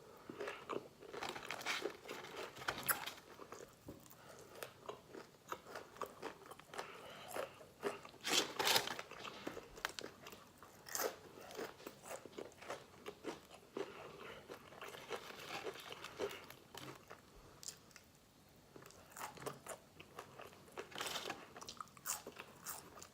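A person biting into and chewing crispy fried chicken: irregular crunches and chewing mouth sounds, loudest about eight to nine seconds in.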